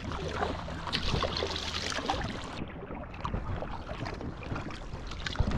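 Paddle strokes dipping and splashing in lake water around a packraft, with a low steady hum that stops about two and a half seconds in.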